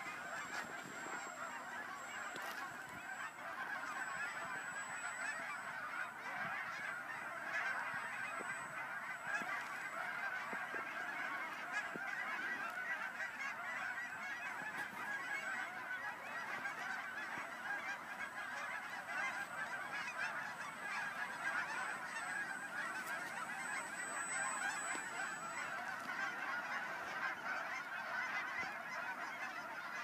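A dense, steady chorus of many overlapping animal calls, unbroken throughout, with no single call standing out.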